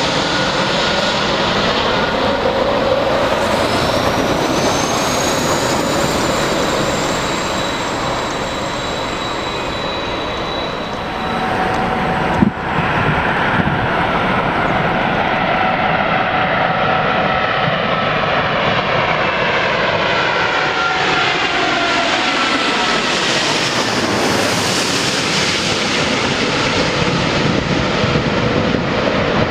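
Jet airliner engines running loud and steady as a landing aircraft passes, their whine bending in pitch as it goes by. A sharp click about twelve seconds in.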